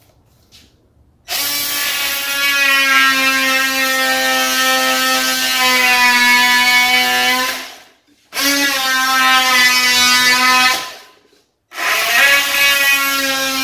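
Cordless oscillating multi-tool trimming wood flush. It makes one long cut of about six seconds that starts just over a second in, then two shorter cuts of two to three seconds each, all at a steady pitch.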